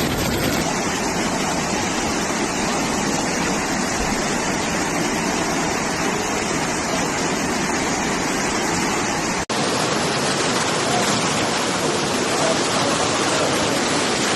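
Floodwater rushing, a steady loud noise of moving water. It breaks off for an instant about nine and a half seconds in and carries on.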